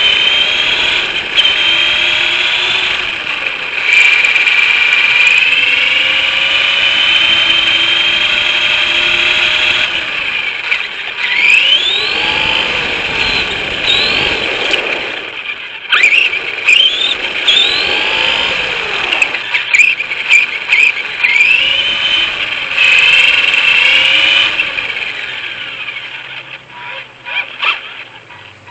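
Arrma Typhon RC car's electric motor and drivetrain whining at high pitch as it drives. The pitch rises and falls with the throttle, with several quick bursts of acceleration in the middle. The whine fades away near the end.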